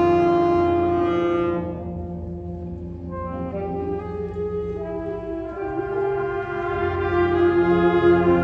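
High school concert band playing sustained chords: a loud held chord drops away about a second and a half in, and a quieter passage of held notes swells back to full loudness near the end.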